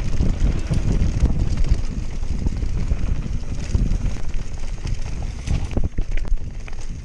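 Canyon Spectral AL 7.0 EX full-suspension mountain bike riding fast down a dirt trail. Wind buffets the action camera's microphone, the tyres rumble over the dirt, and the bike rattles and knocks over bumps.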